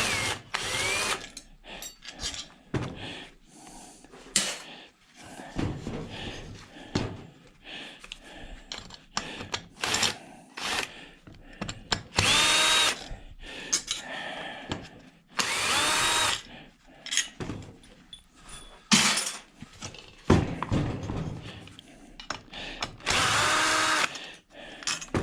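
Power drill driver in several short runs, its motor whine rising in pitch as it spins up each time, backing out a through-bolt on a washing machine motor. Clicks and knocks of metal parts being handled come between the runs.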